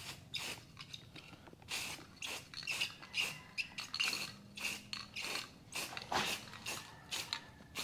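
Aerosol spray can of Rust-Oleum paint giving a rapid series of short hissing bursts as it is sprayed on and off.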